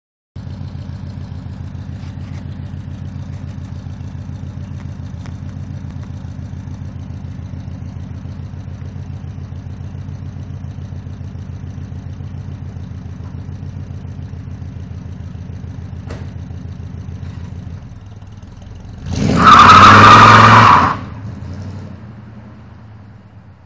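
Car engine idling with a steady, even pulsing beat. About 19 seconds in, a Buick Regal launches hard with a loud burst of tyre squeal and revving lasting about two seconds, which then fades as it drives off.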